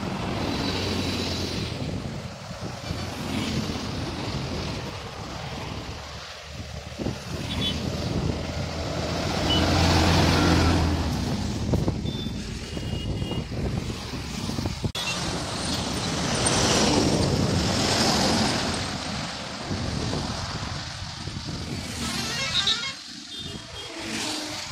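Highway traffic with loaded heavy trucks and cars passing close by. Engine and tyre noise swell and fade as each passes, with the loudest pass-bys near the middle and again about two-thirds through.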